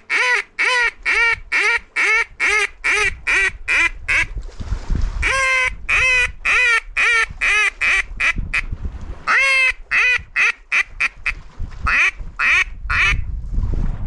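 Zink mallard duck call blown in four runs of loud quacks, about two or three a second, each run falling a little in pitch: a hen-mallard calling sequence to draw in passing ducks.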